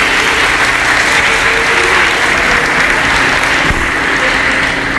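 Audience applauding steadily, easing off a little near the end.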